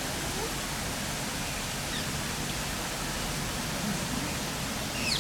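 Steady rushing noise, with a few faint high chirps from birds about two seconds in and near the end.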